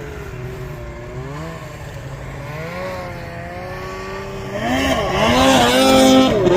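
Two-stroke snowmobile engine revving, its pitch rising and falling with the throttle. It gets louder about four and a half seconds in, with quick rev blips toward the end.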